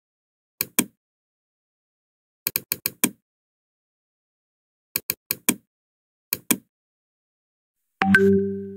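Computer mouse clicking in short clusters: two clicks, then five, then four, then two. Near the end a low ringing tone sounds and fades away over about a second.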